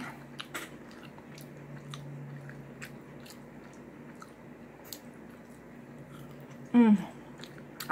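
A person biting and chewing fried scrapple close to the microphone, with small scattered mouth and fork clicks. There is a short voiced sound near the end.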